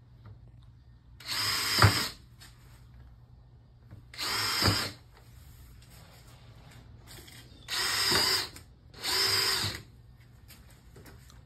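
Cordless drill boring holes through an exterior shutter that was not pre-drilled. The drill runs in four short bursts of under a second each: two spaced about three seconds apart, then two close together near the end.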